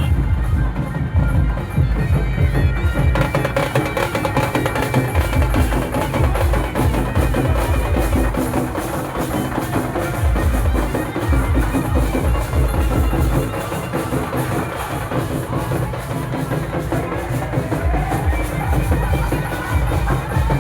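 Loud music with heavy, steady drumming and a pounding bass beat under a held melody line, in the style of a Nagpuri festival song.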